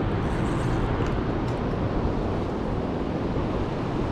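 Steady rushing noise of the fast-flowing lower Niagara River current, even and unbroken.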